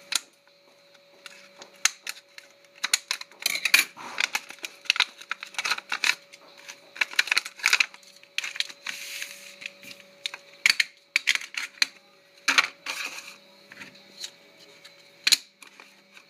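Stiff clear plastic razor-cartridge packaging being cut with scissors and handled: irregular sharp clicks, snaps and crinkles of plastic, with a faint steady hum beneath.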